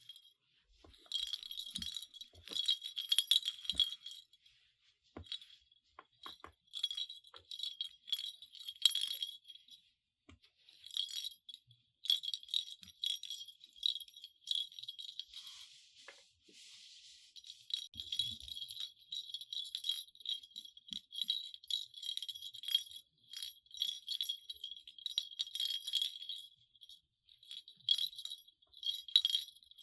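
Small jingle bell jingling in irregular bursts and shakes as a cat moves and plays, with a few soft bumps in between.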